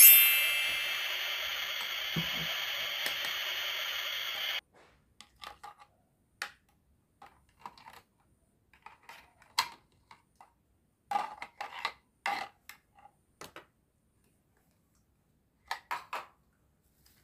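A steady sizzling hiss, as of food on a grill, that cuts off suddenly about four and a half seconds in. It is followed by scattered light clicks and taps of plastic toy food and a plastic toy spatula handled against a plastic grill and tray.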